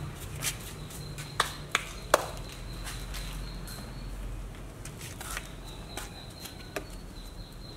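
A few sharp clinks and taps of a metal spoon against stainless-steel bowls, with a few more taps later, over a steady low hum.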